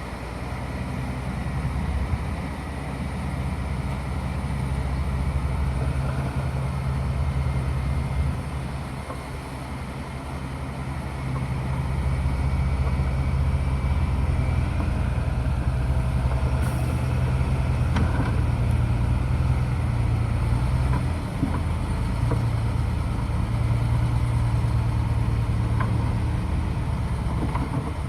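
Bulldozer's diesel engine running steadily as it works, getting louder about twelve seconds in, with a few faint knocks.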